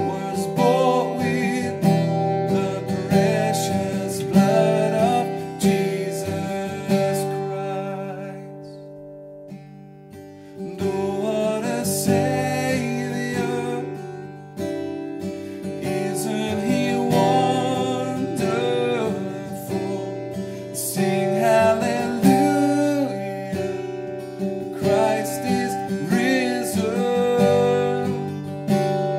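A man singing a worship song to his own strummed acoustic guitar. The playing thins out and softens for a couple of seconds about eight seconds in, then comes back full.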